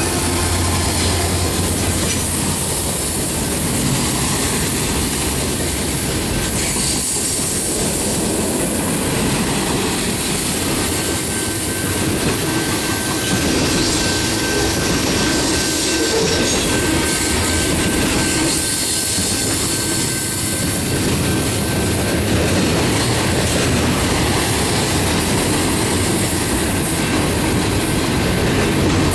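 CN freight train passing close at speed. A mid-train locomotive's engine drone fades in the first second, then tank cars and centerbeam lumber cars roll by with steady wheel-on-rail clatter. A thin, steady wheel squeal is heard for several seconds midway.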